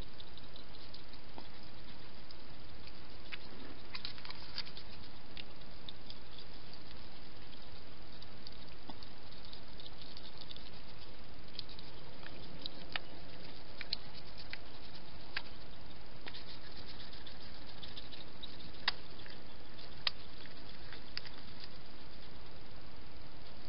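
Wild hedgehogs eating at food bowls: scattered small clicks and crunches over a steady hiss, with two sharper clicks near the end.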